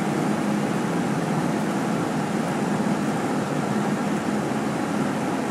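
A moving double-decker bus heard from inside: a steady engine hum under even road and running noise, with no change in pace.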